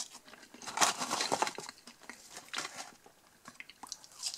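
Scattered rustling and crinkling handling noises: a few short irregular scrapes and rustles, the clearest about a second in and near the end.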